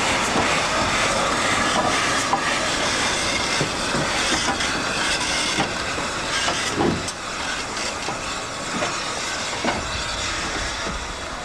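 Southern Railway USA-class 0-6-0 tank engine No. 30072 standing with steam hissing and a few metallic clanks and knocks; the hiss eases a little about seven seconds in.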